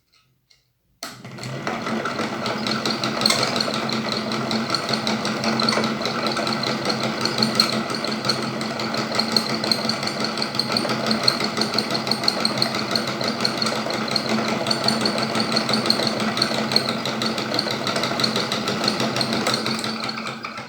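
A small machine running steadily with a fast, even rattle and a high whine. It starts about a second in and stops near the end.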